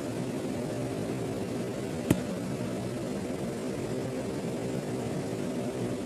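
Steady hum of industrial plant machinery running, with a few faint steady tones in it. A single sharp click comes about two seconds in.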